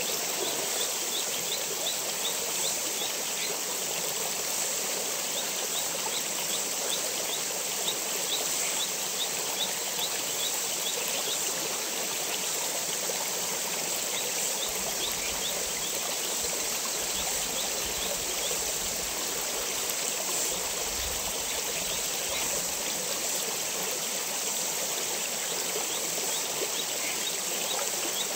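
Stream water flowing steadily, with a high, rapid chirping in short runs every few seconds.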